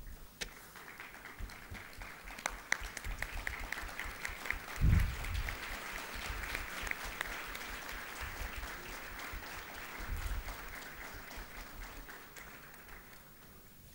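Audience applauding, a dense patter of many hands clapping that fades away near the end. A dull low thump comes about five seconds in.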